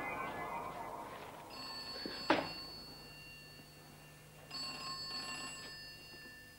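Telephone ringing twice, a steady high ring about three seconds apart, from a cream rotary-dial phone; a sharp knock sounds partway through the first ring.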